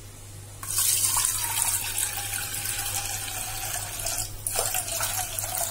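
Water pouring steadily into a bowl, starting about half a second in, with a brief break near the end.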